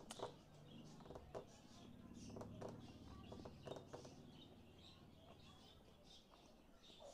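Faint wet chewing and mouth clicks of someone eating a shawarma wrap close to the microphone, a string of short smacks and squelches.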